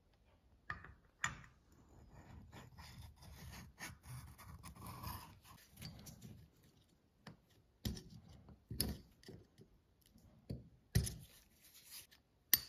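Light metal scrapes and ticks from a pick and a screwdriver worked at a new two-stroke piston's pin bore, with a few sharp clicks, the loudest about eleven seconds in and just before the end.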